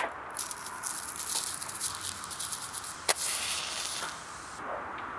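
Dry birch bark crackling and rustling as it is peeled from a log by gloved hands. About three seconds in, a match strikes with a sharp scratch and flares, lighting bark tinder.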